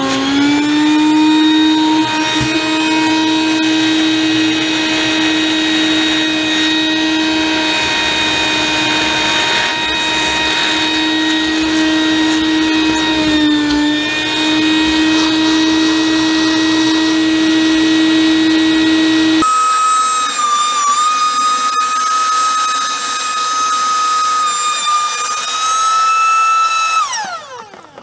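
Wet/dry shop vacuum running steadily as it sucks water from under a flooded water heater. About two-thirds of the way through, its note jumps to a higher, thinner whine. Near the end it is switched off and winds down with a falling pitch.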